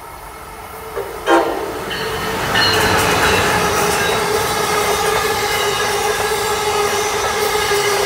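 Amtrak ACS-64 electric locomotive sounding its horn as it approaches and passes: a short toot about a second in, then a long steady horn blast from about two and a half seconds, over the rumble and wheel clatter of the passing passenger train.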